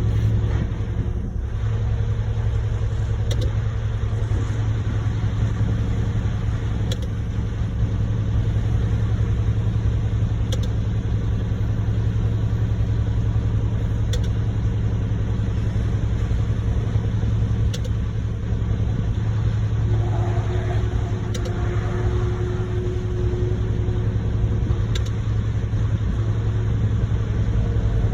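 Diesel engine of a concrete mixer truck running steadily while concrete is poured into a skid steer bucket, with a faint tick about every three and a half seconds. A second, higher engine tone joins for a few seconds past the middle.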